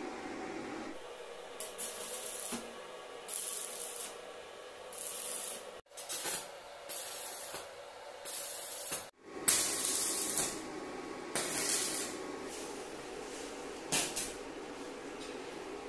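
Stick (arc) welding on galvanised square steel tubing: a series of short crackling bursts of hiss, each a second or less, as joints of the frame are tack-welded. A faint steady hum lies underneath.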